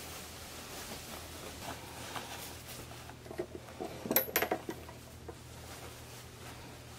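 Cotton duvet cover being handled: soft rustling of cloth, with a brief cluster of sharper rustles and clicks about four seconds in.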